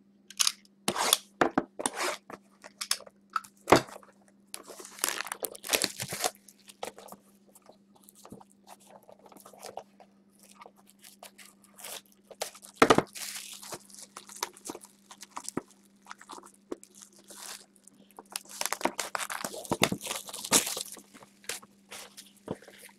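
Cardboard trading-card boxes being handled and opened: irregular crackles, taps and rustles of cardboard and plastic wrap, over a steady low hum.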